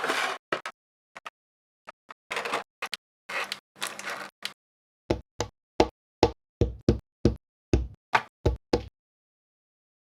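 Packaging handled during an unboxing: short bursts of rustling from the box and wrappers, then a run of about a dozen sharp knocks, two to three a second, from about five seconds in.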